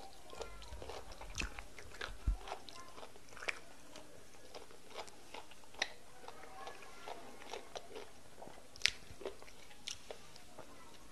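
Close-miked eating sounds of egusi soup and fufu eaten by hand: wet chewing and lip smacks with irregular sharp clicks, loudest one near the end.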